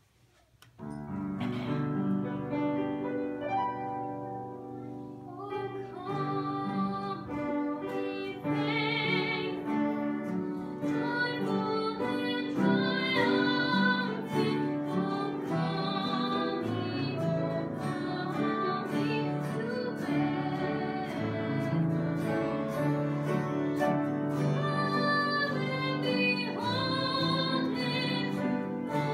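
A young woman singing a Christmas hymn with acoustic guitar accompaniment. The music starts about a second in.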